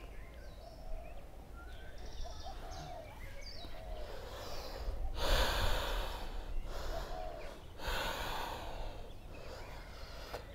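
A woman breathing heavily through a yoga flow, with two loud, hissing exhales about five and eight seconds in, picked up close by a clip-on microphone.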